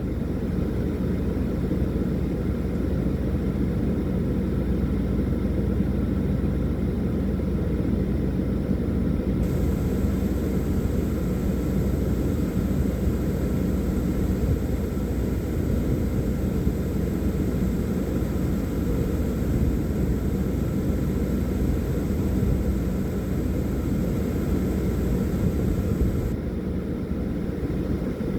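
Wind buffeting the microphone: a steady low rumble with no clear events in it.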